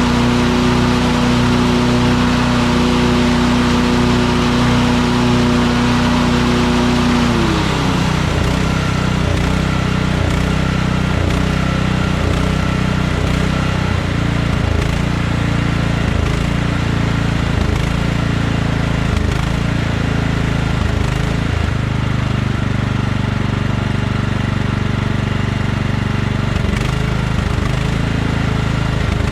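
Kohler Command small engine with a non-adjustable aftermarket carburetor, running steadily at speed. About seven seconds in its pitch drops and it settles to a slower, slightly uneven run.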